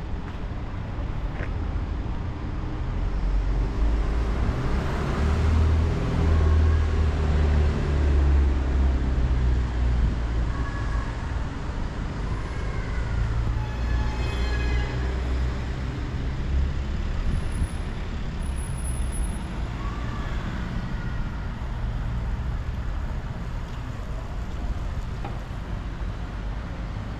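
City street traffic: a deep rumble of passing vehicles swells about four seconds in and eases off after about sixteen seconds, with a few faint short squeals over it.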